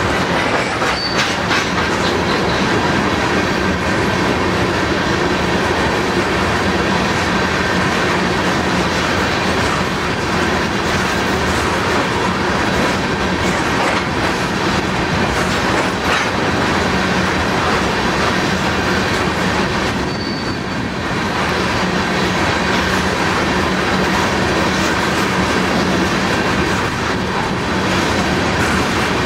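Railroad tank cars of a crude oil train rolling past close by: a steady, loud rumble of steel wheels on rail with rhythmic clicking over the rail joints. A brief high wheel squeal comes about a second in and again about two-thirds of the way through.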